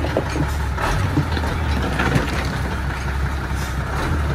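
Tata truck's diesel engine idling steadily with a low rumble.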